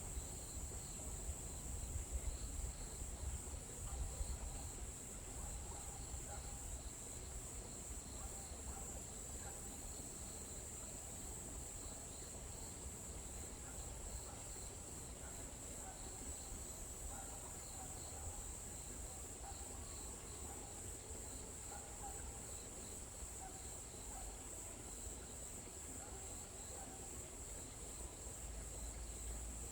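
Steady chorus of crickets chirping in a high, fast-pulsing trill, with a low rumble underneath.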